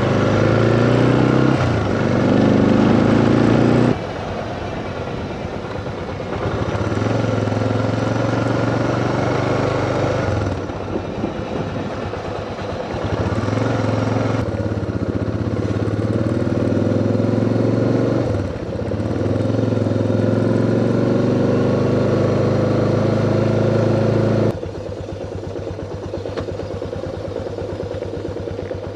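Motorcycle engine running under way, its pitch rising again and again as it accelerates and shifts through the gears. The sound changes abruptly several times, and for the last few seconds it runs lower and steadier.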